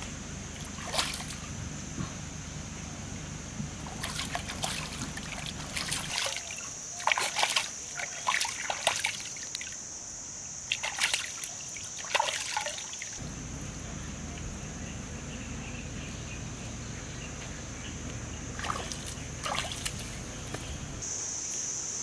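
Stream water splashing and sloshing as raw chicken pieces are rinsed by hand, in several short bursts of splashes with quieter trickling between.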